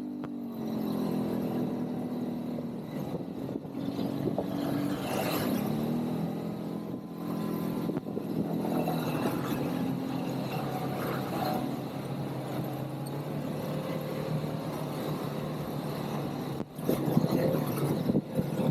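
ATV engine running under way, its pitch rising and falling with the throttle. A short burst of louder noise comes near the end.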